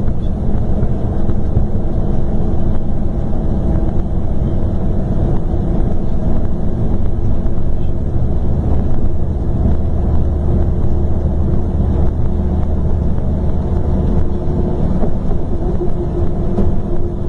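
Scania K420 coach's rear-mounted diesel engine running, a steady low rumble with a deeper swell in the middle and a humming tone near the end.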